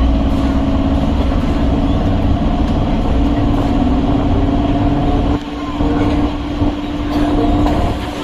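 Electric suburban train running along the track, a steady rumble with a strong low hum; the noise drops somewhat about five seconds in.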